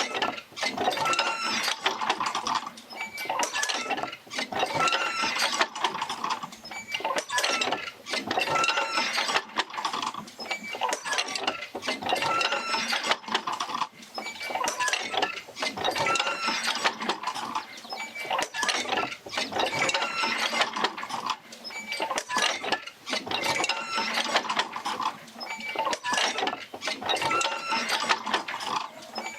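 Oil-field field wheel rocking back and forth as it drives its jerker lines. It creaks, squeaks and clanks in a cycle that repeats about every four seconds, with many sharp clicks between.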